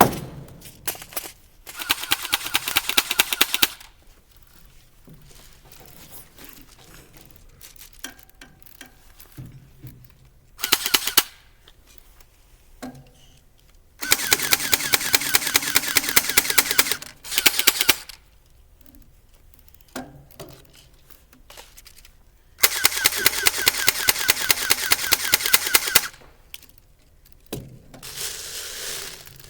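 Airsoft guns firing in rapid automatic bursts, a quick run of even clicks each time. There are six bursts: the longest, of about two to three seconds, come near the start, in the middle and toward the end, with shorter ones between.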